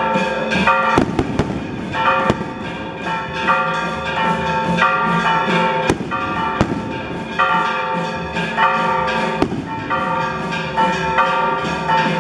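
Church bells ringing in a rapid repeating pattern, with several sharp bangs of firecrackers or sky rockets going off through it.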